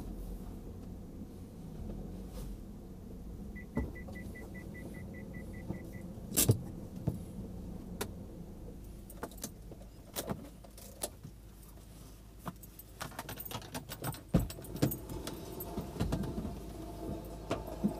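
A car's steady low rumble. About four seconds in, a quick run of about a dozen short, even beeps lasts a couple of seconds. Later come scattered sharp clicks and rattles, thickest in the last few seconds.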